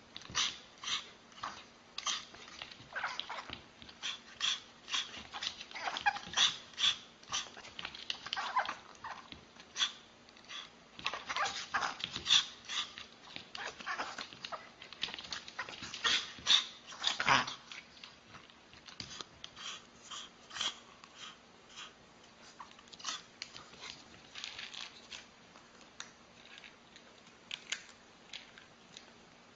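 Small white dog making a quick run of short, sharp yaps and yelps, a few with a short rising-and-falling whine, the calls thinning out over the last third.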